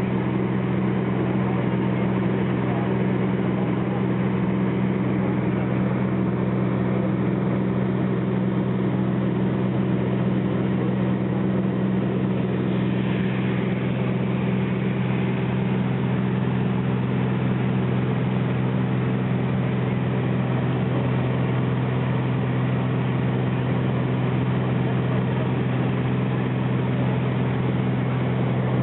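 An engine running steadily at an unchanging speed: a constant deep drone.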